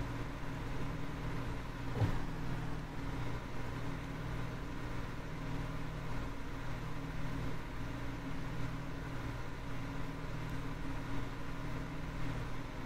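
A steady low machine hum, with a single soft knock about two seconds in.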